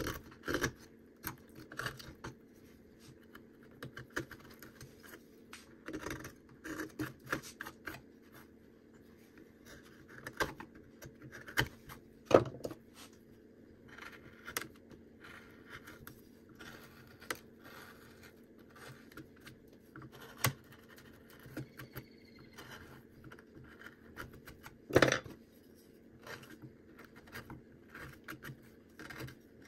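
Carving knife cutting and scraping into cottonwood bark by hand: irregular short cuts and scrapes, with a few louder snaps about twelve seconds in and again near twenty-five seconds. A steady low hum sits underneath.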